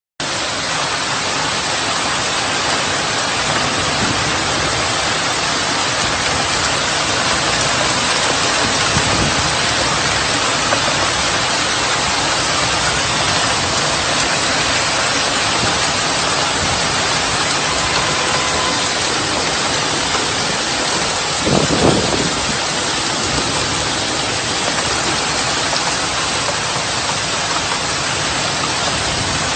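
Heavy thunderstorm downpour pouring down steadily, with one brief low rumble about twenty-two seconds in.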